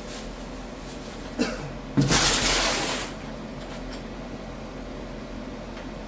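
A short knock, then a loud clatter about a second long that fades out, from parts being handled during table saw setup.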